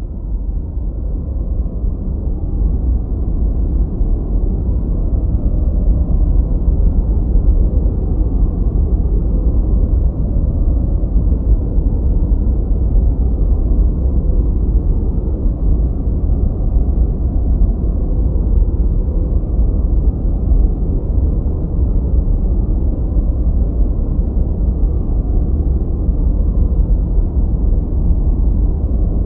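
Steady 'gentle white noise' for sleep and masking: an even, deep hiss weighted toward the low end with the highs rolled off, closer to brown noise than bright white noise. It swells up over the first few seconds, then holds level.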